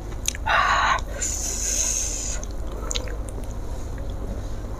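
A person's sharp breath while eating very hot chilli sambal: a loud breathy exhale about half a second in, then about a second of hiss as air is sucked in through the teeth. Soft mouth sounds of eating follow.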